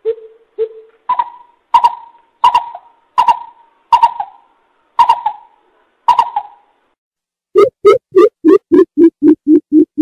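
Greater coucal hooting. First come two low hoots, then a series of slightly higher hoots about every 0.7 s. After a short pause, about 7.5 seconds in, a fast, loud run of deep hoots begins at about four a second.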